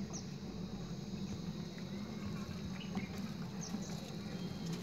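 Quiet outdoor ambience on a moving open chairlift: a steady low hum with a faint high insect tone and a few short, faint high chirps.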